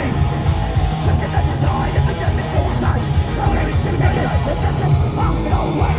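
Thrash metal band playing live at high volume: distorted electric guitars, bass and fast, pounding drums.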